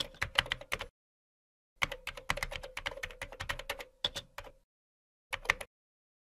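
Rapid keystrokes on a computer keyboard, typing in three bursts: a run that stops about a second in, a longer run from about two to four and a half seconds, and a short burst about five seconds in.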